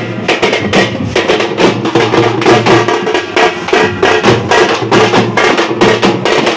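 Street procession drummers beating double-headed stick drums in a fast, steady, loud rhythm.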